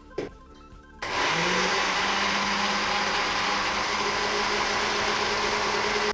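Countertop blender starting about a second in, its motor spinning up and then running steadily as it blends frozen banana, spinach and yoghurt into a smoothie. It cuts off at the end.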